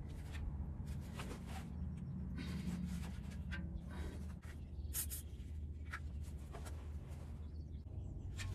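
Socket wrench clicking and scraping against an oil drain plug as it is fitted and worked, in scattered irregular clicks, over a low steady rumble.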